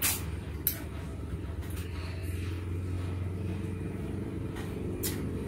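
Short, sharp sucking slurps as mangrove mud-creeper snails (siput sedut) are sucked out of their cut-off shells: one at the start, one under a second in and one near the end, over a steady low rumble.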